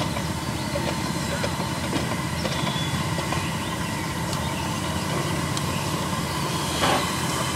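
Ride-on scale live steam Mikado locomotive moving slowly under its own steam: a steady hiss over a low rumble, with a short louder burst near the end.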